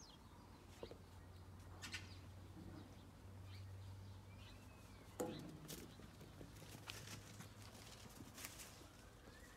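Near silence: faint outdoor ambience with a low hum, a few distant bird chirps, and scattered soft clicks and knocks, the loudest a short thump about five seconds in.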